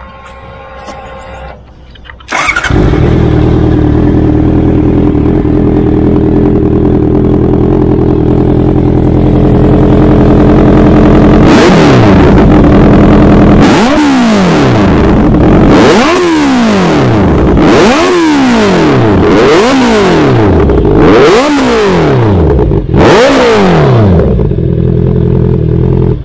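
Honda CBR650R's inline-four engine, fitted with an SC-Project exhaust, starts about two seconds in and idles steadily. It is then revved in about seven quick throttle blips, each rising and falling in pitch, before settling back to idle.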